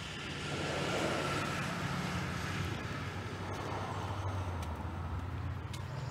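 A motor vehicle's engine running, a low steady drone with road noise that swells about half a second in and holds, its pitch dipping slightly past the middle.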